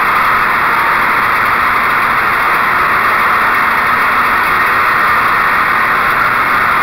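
Wright Stander stand-on mower running steadily, its Kawasaki FS600V V-twin engine and cutting deck driving through a thick layer of dry leaves.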